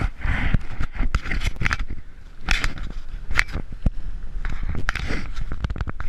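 Handling noise from a GoPro camera being adjusted by hand: fingers rubbing and scraping on the housing, with many irregular sharp clicks. Under it is a steady low rumble of wind on the microphone.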